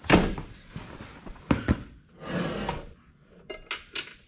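Knocks and scraping as a tubular side step is handled and set onto its mounting brackets under a pickup's cab: a loud scrape at the start, two sharp knocks about a second and a half in, another scrape, then a few light clicks near the end.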